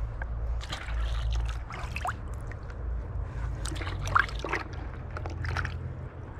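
Water splashing and sloshing in a bucket as a hand scoops out small fish, with small splashes as the fish are tossed into a pond. It comes in several short bursts, the loudest about four seconds in.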